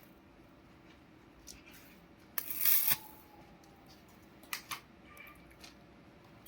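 Short spells of stick-welding arc crackle, the loudest lasting about half a second about two and a half seconds in, with a couple of briefer ones near the middle. Between them are quiet stretches with a few light metal clicks.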